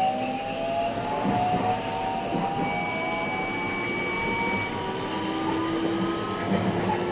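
Electric train running on the line, heard from the cab: steady wheel-and-rail rumble under a whine that slowly rises in pitch as the train gathers speed, with a brief steady higher tone near the middle.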